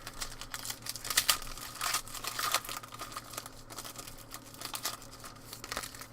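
Crinkling and tearing of a trading card pack's wrapper as it is torn open and handled. There is a dense run of crackles for about three seconds, then scattered crinkles.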